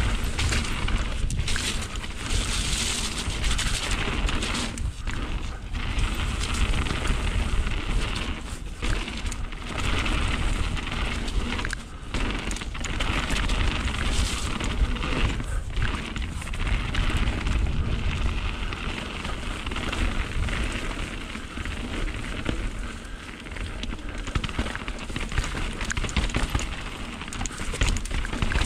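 Mountain bike riding down a wet trail: a continuous noisy rush of tyres on the wet ground with a heavy low rumble, dipping briefly every few seconds.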